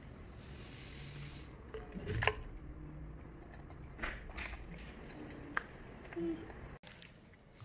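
Small clicks and knocks of ice cubes being picked off a paper plate and dropped into a plastic bottle. A handful of separate taps, the loudest about two seconds in, after a brief rustle near the start.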